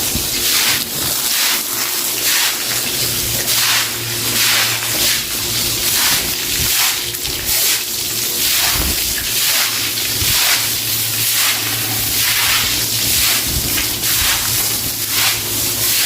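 Stiff broom scrubbing a wet floor: repeated wet swishing strokes, about one or two a second, with water sloshing under the bristles.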